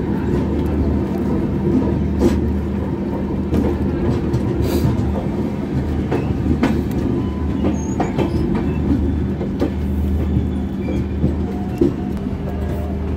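Duronto Express passenger train running on the track: a steady low hum with scattered, irregular clicks and knocks from the wheels.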